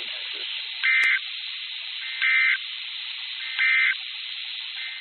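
Emergency Alert System end-of-message signal: three short warbling two-tone digital data bursts, about a second and a half apart, over a steady hiss of radio static.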